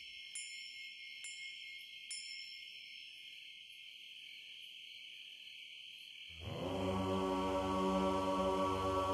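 Meditative new-age chant music: a few chime strikes about a second apart ring out and fade over a steady high drone. About six seconds in, deep sustained chanting voices come in and hold long notes.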